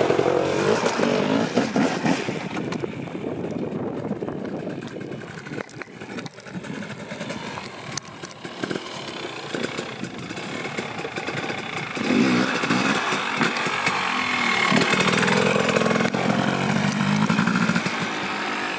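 Off-road motorcycle engine revving as it is ridden for a wheelie, loud at first, dropping back for several seconds, then revving up again about twelve seconds in.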